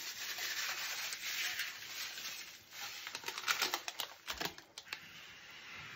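Plastic Epsom salt pouch crinkling and crackling in gloved hands, most sharply about three to four and a half seconds in, over a light swish of water being stirred in a metal tub.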